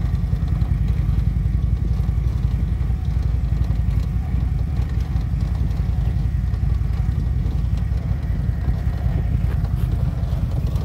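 Motorcycle ride heard from the rider's seat: a steady low rumble of wind buffeting the microphone over the running engine and road noise.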